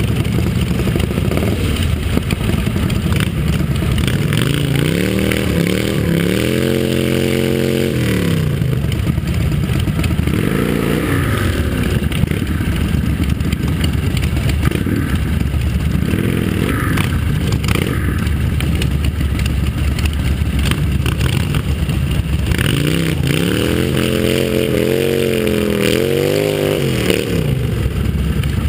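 Motorcycle engines running at close range, with one engine revved up and let back down twice: once about five seconds in and again near the end.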